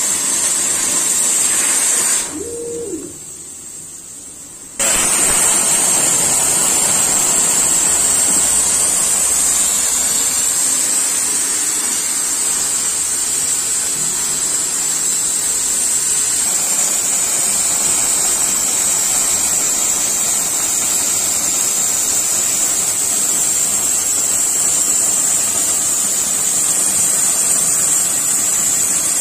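Oxy-fuel cutting torch on a CNC cutting table, its gas jet hissing steadily as it cuts steel plate. The hiss drops away sharply about two seconds in and comes back nearly three seconds later.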